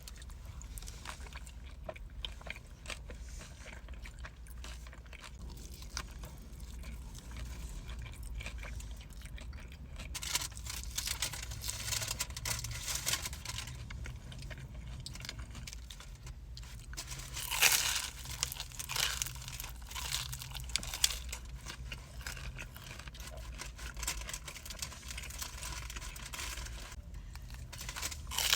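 Close-miked chewing and crunching of a toasted chalupa shell, with many small wet clicks and louder crunches about ten seconds in and again a little past halfway.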